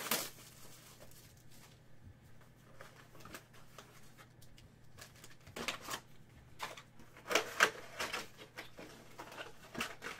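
Hands handling trading-card boxes and packaging: intermittent rustling, light taps and clicks, with a few louder bursts of handling about six to eight seconds in.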